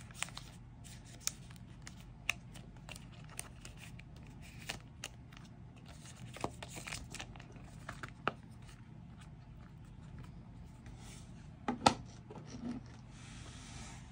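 Faint rustling and scattered light clicks of glossy photocards and thin plastic card sleeves being handled and sorted, with one sharper click about twelve seconds in.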